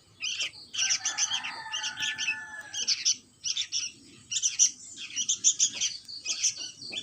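Sooty-headed bulbul (kutilang) chicks chirping: clusters of short, high calls repeated throughout. From about one to three seconds in, a steady lower tone sounds under the chirps.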